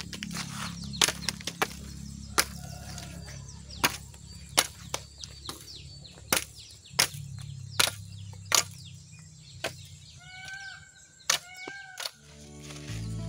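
Billhook chopping a green stalk: about a dozen sharp chops at uneven intervals, roughly one a second. Three short pitched calls come near the end, and music fades in just before it ends.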